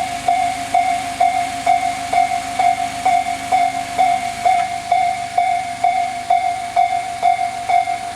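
Japanese level-crossing warning bell of the Tobu 'sound C' type, the Tojo Line style, ringing a single electronic ding over and over, about two strokes a second, at an even pace.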